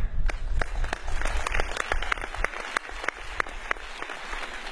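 Audience applauding, with many separate hand claps standing out, thinning and getting quieter toward the end.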